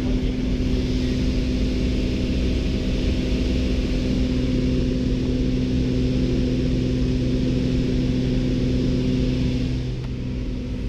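Small high-wing propeller plane's engine droning steadily at climb power, heard from inside the cabin. The drone dips slightly near the end.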